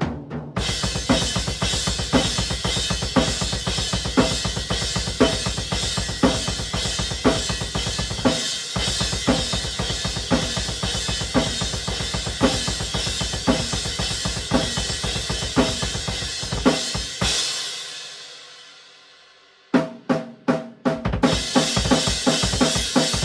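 Drum kit played fast: rapid, even bass drum strokes and snare hits under a constant wash of crash cymbal. About 17 seconds in the playing stops on a hit, and the cymbal rings out and fades for about two seconds before the kit comes back in. The cymbal on show is a Zildjian A Custom 19-inch Crash, Brilliant finish.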